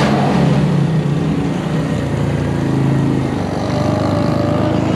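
Small motorcycle engine running, its pitch stepping up and down with the throttle.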